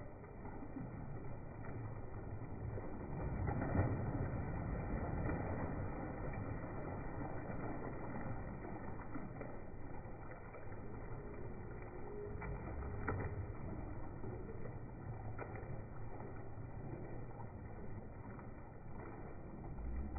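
Water splashing and sloshing in a shallow fish tank as a man wades and grabs at rohu fish, over a steady rush of water from an inlet pipe; a louder splash about four seconds in.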